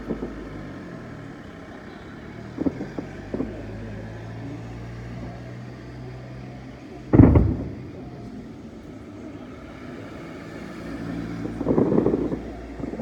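Fireworks shells bursting: a couple of light pops about three seconds in, one loud deep boom about seven seconds in, and a rumbling cluster of bursts near the end, over a steady low hum.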